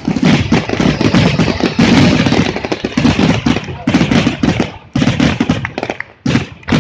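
Fireworks finale barrage: a rapid, dense volley of shells bursting, the bangs running together for about five seconds, then thinning out to a few separate bursts near the end.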